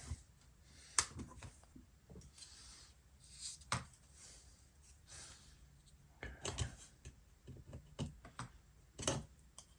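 Faint, scattered clicks and light scraping of a small tool and fingers working inside an opened MacBook Pro as a cable connector is unhooked, about five sharp clicks with soft rubbing between them.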